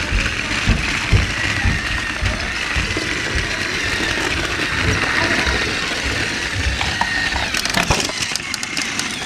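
Battery-powered Thomas the Tank Engine toy train running along plastic track, heard up close: a steady small-motor whine with irregular knocks from the wheels over the track. Near the end comes a cluster of sharp clattering knocks.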